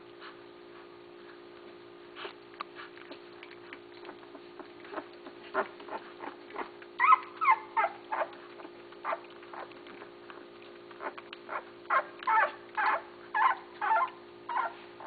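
Basset hound puppies whimpering and squealing in short, high-pitched cries, a few sliding in pitch. The cries are scattered at first, then come in quick runs about seven seconds in and again near the end, over a steady low hum.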